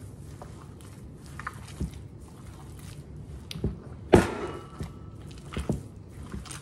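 Wet, irregular squelching of bare hands squeezing and kneading a raw ground-beef meatloaf mixture in a bowl. About four seconds in comes one sharp knock with a brief ring, the loudest sound.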